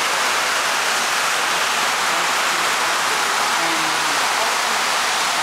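Rain pouring steadily onto a corrugated sheet roof overhead, heard as a loud, even hiss that fills the room.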